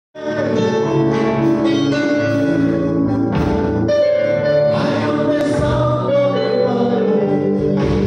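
Live gospel worship singing by a group of voices over keyboard accompaniment, amplified through a church PA system, loud and steady throughout.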